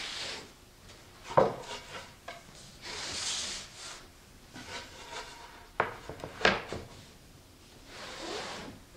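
Plywood panels sliding and rubbing across a wooden workbench top, with three sharp wooden knocks as the boards are moved and set down, the first the loudest.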